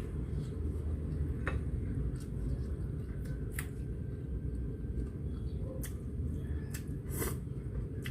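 Eating sounds: a handful of short, scattered clicks and squishes from utensils and a noodle bowl over a steady low hum.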